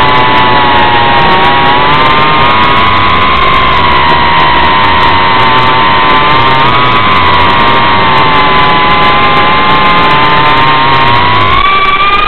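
Reptile Cloud 149 V2 FPV quadcopter's motors and unducted propellers whining in flight, as picked up by the camera mounted on the drone. Several close tones waver up and down with the throttle and rise in pitch near the end.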